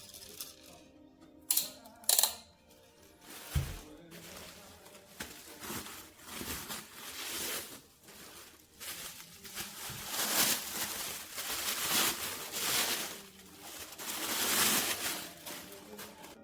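A few sharp clicks and a low knock, then a rushing hiss that swells and fades several times, over background music.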